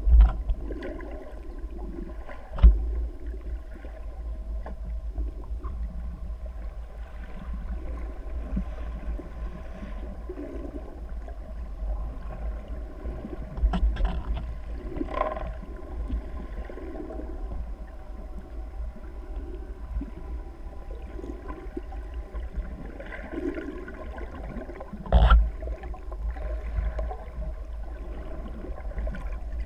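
Underwater ambience recorded from a camera held underwater: a steady low rumble with gurgling water and bubble noise, broken by a few sharp knocks, one right at the start, one a couple of seconds in, a pair near the middle and one near the end.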